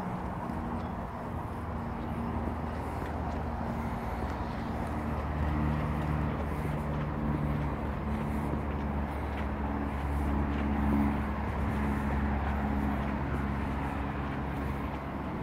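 Steady drone of road traffic on an overpass above, with a low engine hum that grows louder in the middle.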